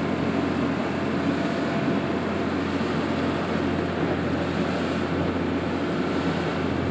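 A motorboat's engine drones steadily at trolling speed, with wash of water and wind noise over the boat.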